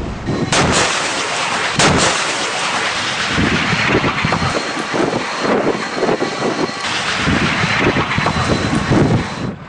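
Weapon blasts: two sharp cracks about half a second and two seconds in, followed by a continuous loud rushing, rumbling noise with uneven swells.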